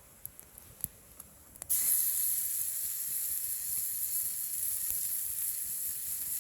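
A few light clicks, then a steady high hiss that starts suddenly and cuts off sharply about five seconds later.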